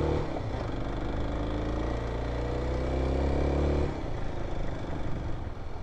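Kawasaki KLX dual-sport motorcycle's single-cylinder four-stroke engine pulling away, its pitch rising slowly under throttle, then easing off about four seconds in.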